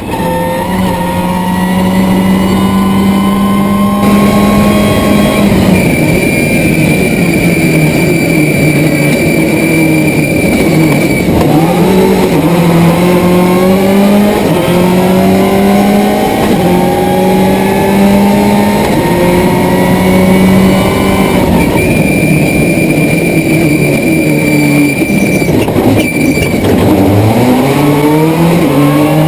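Subaru Impreza S11 WRC rally car's engine running hard at speed. The revs hold steady for the first few seconds, then repeatedly climb and drop back through gear changes, with a high whine over parts of it.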